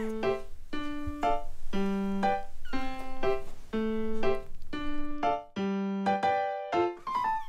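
Background music: a light keyboard melody of short, bouncy notes at a steady pace over a simple bass line.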